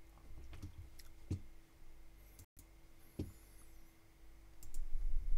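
Quiet room tone with a faint steady hum, broken by a few soft knocks, clearest about a second in and about three seconds in, and a low rumble near the end.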